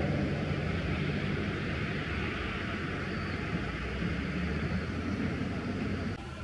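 Steady outdoor background noise: a low rumble under an even hiss, with no distinct calls or events.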